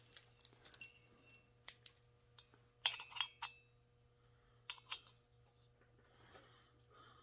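A few faint, scattered metallic clinks and taps from small metal parts being handled, with a short cluster about three seconds in, over a faint steady low hum.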